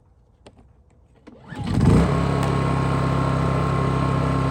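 Honda inverter generator starting about a second and a half in, catching with a brief surge and then running steadily with eco mode off, at constant full engine speed.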